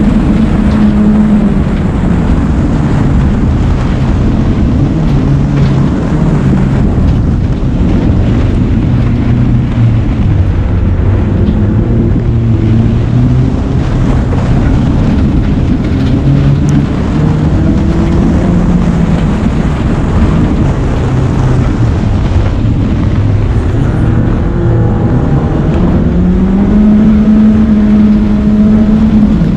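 A BMW race car's engine being driven hard on a loose dirt rallycross course, revs climbing and dropping with gear changes and corners over steady tyre and road noise. Near the end the revs rise and hold high.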